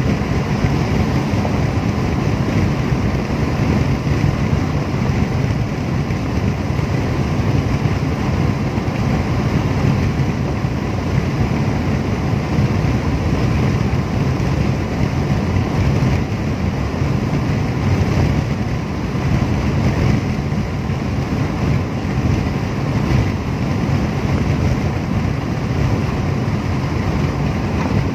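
Steady road noise inside a car's cabin at expressway speed: tyres on asphalt, engine and wind as one low, even rumble.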